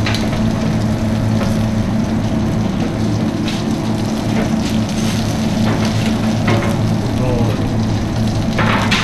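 Red onion wedges sizzling on a hot flat-top griddle as they are turned with metal tongs, with a few sharp clicks of the tongs against the steel, over a steady low hum.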